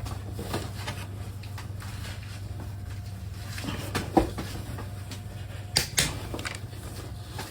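Sharp metallic clicks from a click-type torque wrench being pulled on cylinder head bolts: one about four seconds in and two close together about six seconds in, over a steady low hum.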